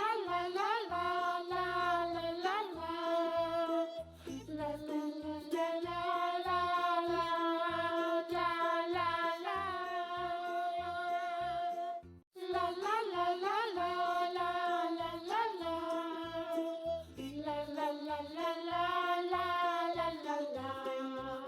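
Background children's song: a voice singing a melody over musical accompaniment, breaking off for a moment about twelve seconds in.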